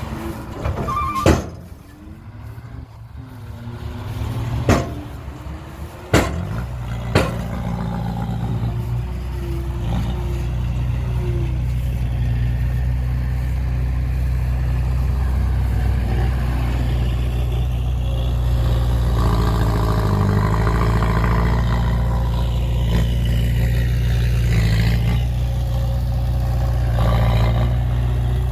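Heavy diesel engine of a dump truck or earthmover running steadily at a low, even pitch, with a few sharp knocks or clanks in the first seven seconds before the engine settles in.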